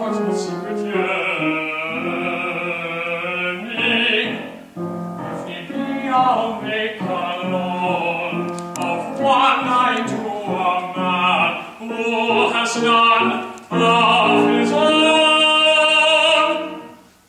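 Operatic singing in a staged comic opera, the voice moving through a melodic line with vibrato. Near the end it holds one long note for about three seconds.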